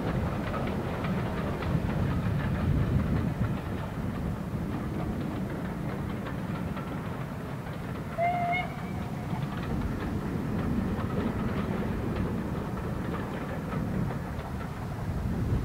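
Distant steam locomotive hauling a train: a steady low rumble, with one short whistle toot about eight seconds in.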